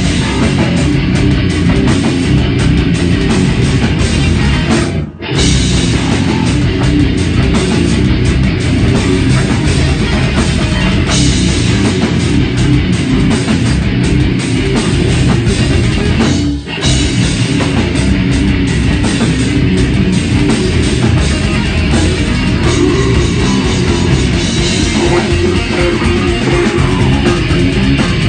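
Death metal band playing live: heavily distorted electric guitars and bass over a pounding drum kit, dense and loud throughout. The band stops for a split second twice, about five seconds in and again about seventeen seconds in.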